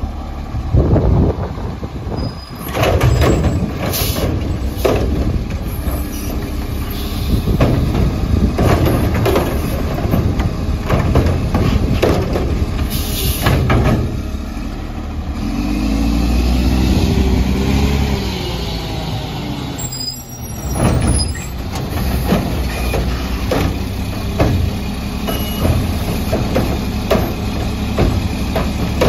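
Mack LE garbage truck with a McNeilus Atlantic front-load body and Curotto Can working at the curb. The diesel engine runs and revs up for about three seconds midway to drive the hydraulics. Repeated clanks and bangs come from the cart arm and the can, with a few sharp bursts of air hiss.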